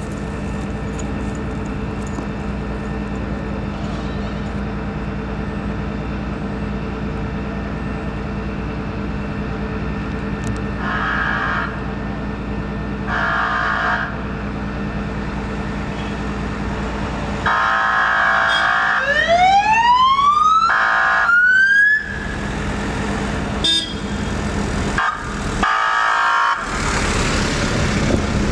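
Fire service command unit's siren and bullhorn over a steady engine hum: two short horn blasts, then a longer one, then the siren winding up in a rising wail that breaks off, then more short blasts near the end.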